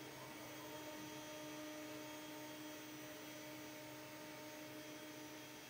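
CNC router spindle turning a half-inch Vortex finishing end mill at 18,000 RPM, taking a parallel finishing pass across the bottom of a pocket in acetal (Delrin): a faint steady hum.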